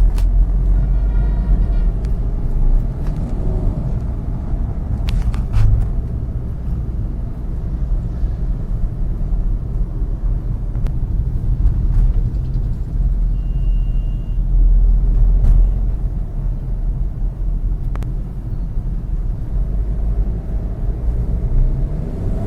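Maruti Suzuki Swift diesel running with a steady heavy low rumble and drone, the humming noise that goes with its poor pickup, which the mechanic diagnoses as a failed clutch plate. A few sharp clicks and a short high tone are heard along the way.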